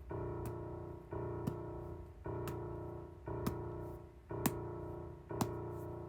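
Footstep sound effect layered with piano: a piano chord struck about once a second and left ringing, with a sharp tap landing about half a second after each chord.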